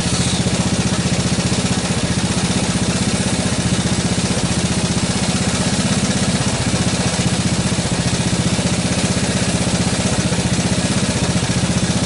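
1985 Honda ATC200S three-wheeler's single-cylinder four-stroke engine idling steadily, shortly after a cold start on choke. It holds its idle now that the carburetor has been cleaned, where before it would stall.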